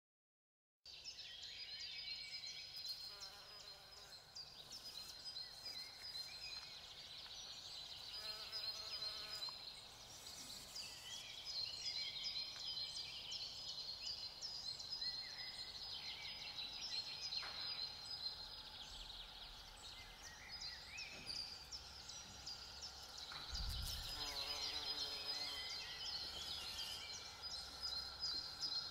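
Outdoor nature ambience starting about a second in: many high, quick chirps and trills over a steady high-pitched buzz, like a chorus of birds and insects, with a few lower calls breaking in now and then.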